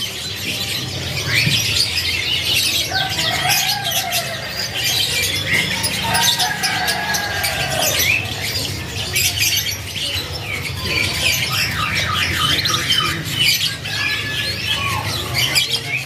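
A crowd of domestic canaries in colony cages singing and chirping all at once, with many overlapping fast trills and rapid high chirps. These are birds already in full song. A steady low hum runs beneath.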